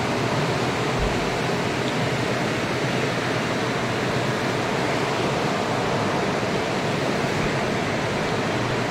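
Steady rushing of a fast-flowing river, the Rur, running over rocks in a stone channel between houses.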